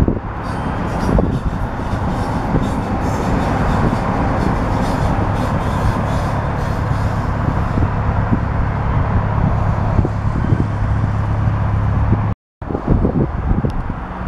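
Electric multiple unit train passing close by, a loud steady rumble of wheels and running gear that cuts off abruptly about twelve seconds in. After a brief gap, wind buffets the microphone.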